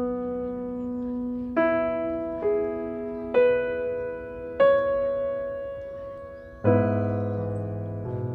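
Background music of a slow, gentle solo piano melody, single notes struck about a second apart and left to ring, with a fuller chord and low bass coming in about two-thirds of the way through.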